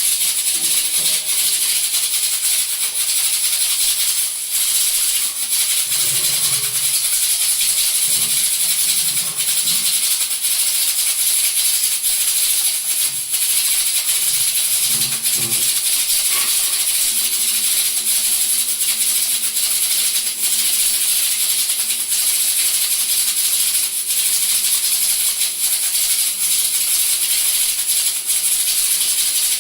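Prestige pressure cookers venting steam through their whistle weights: a loud, steady, high-pitched hiss that does not let up.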